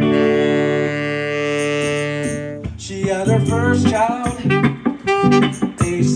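Live band music: a long held note over a sustained chord for about two and a half seconds, then a busier melodic line of bending, quickly changing notes over the band.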